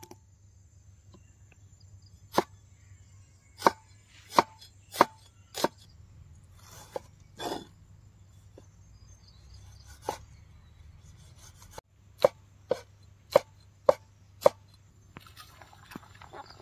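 Large cleaver-like knife chopping vegetables on a wooden board: sharp knocks of the blade striking the wood, in two runs of five strikes at about two a second, with a few single chops between.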